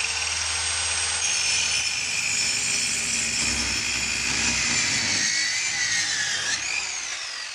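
Handheld electric circular saw running and cutting through a wooden board, its motor and blade giving a steady high whine. A little after six and a half seconds it is switched off and the blade spins down with a falling whine.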